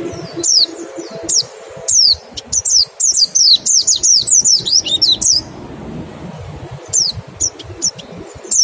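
White-eye (pleci) giving its sharp, high 'wit' call, each note a quick downward slur. The notes come singly at first, then in a fast run through the middle, then spaced out again after a short pause near the end.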